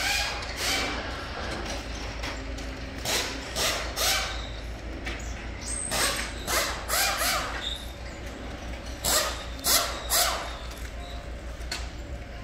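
Forklift engine running with a steady low hum, with repeated sharp metal clanks and short squeaks from the loading work.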